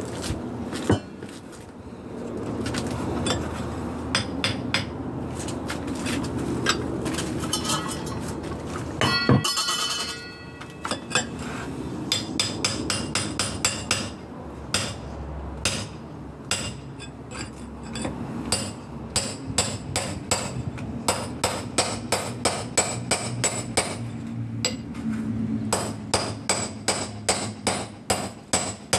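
Hand tools knocking at a concrete block wall: a run of sharp metallic hammer blows, about two to three a second in the second half, with a brief ringing clang about nine seconds in.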